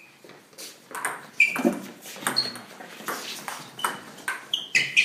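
Table tennis rally: the ball clicking off rubber paddles and pinging on a Stiga Expert table in quick, irregular succession, about two to three hits a second.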